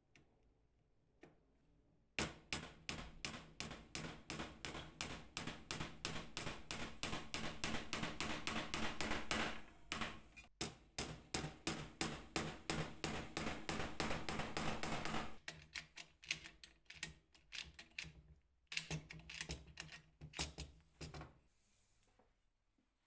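A long run of rapid, sharp taps, about four or five a second, over a steady low hum. The taps start about two seconds in, come more sparsely after the middle, and stop shortly before the end.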